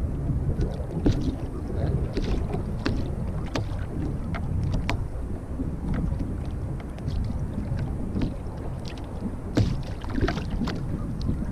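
Wind rumbling on the microphone over water sloshing at the sea's edge, with scattered small clicks and taps throughout.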